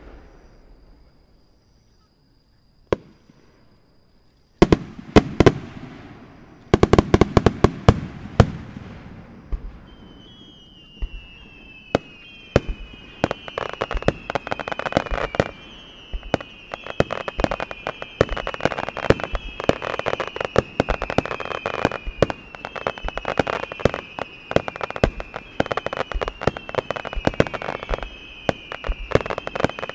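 Extra-large star mine fireworks barrage by Katakai Fireworks: a single bang, another about three seconds in, then from about five seconds a dense run of launch thumps and shell bursts. From about ten seconds it is joined by repeated whistles that fall in pitch.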